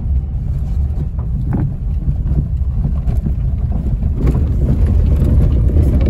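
Renault Triber driving slowly, heard from inside the cabin: a steady low rumble with a few faint knocks from the front end. The mechanic traces this front-end steering noise to a faulty steering rack.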